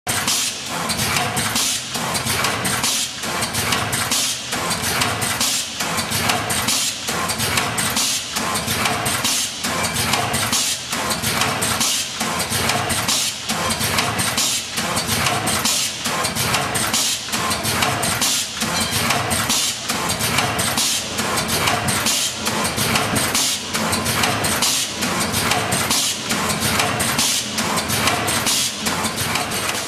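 AMTEC VERTIwrap S100XL vertical form-fill-seal packaging machine running, a fast, even rhythm of knocks over a steady hum as it forms, seals and drops bags one after another.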